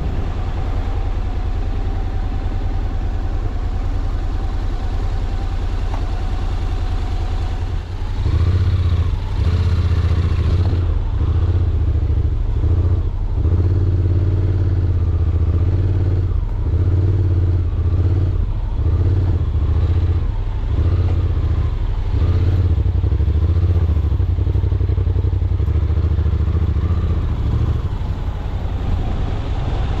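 Honda NC750X's parallel-twin engine ticking over steadily, then pulling away about eight seconds in and running at low speed, the throttle opening and closing so the engine note swells and falls about once a second, before easing off near the end.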